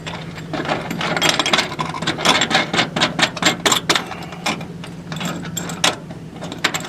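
Quick, irregular metallic clicks and clinks as a seat-belt anchor bolt's washers and nut are handled and fitted, with ratchet-like clicking, densest in the first few seconds. A steady low hum runs underneath.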